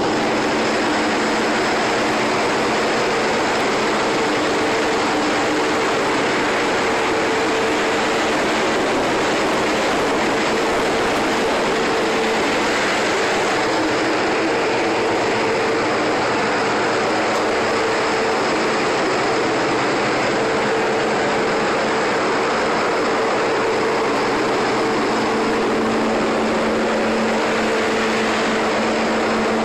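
Steady drone of a tug's diesel engines under way, an even rushing noise with a low hum held under it.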